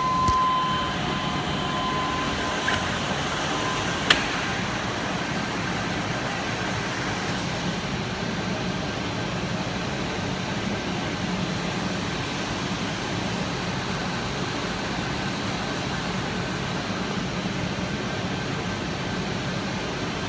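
Chevy 5.7 L Vortec V8 idling steadily, running again on a newly installed distributor while its timing is set. A thin high tone sounds for the first couple of seconds, and there is a single sharp click about four seconds in.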